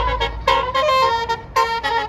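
Bus 'basuri' musical air horn playing a quick tune of short notes that jump up and down in pitch. A low engine rumble fades out in the first half second.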